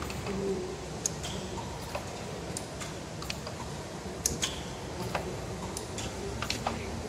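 A steady low hum with irregular light ticks and clicks scattered through it.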